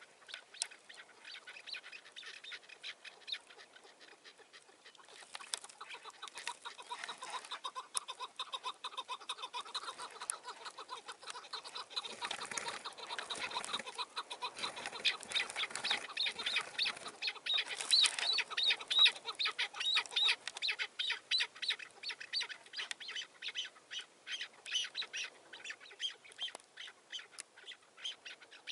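Chukar partridges calling, a rapid run of repeated chuk notes that swells to its loudest past the middle and thins out near the end.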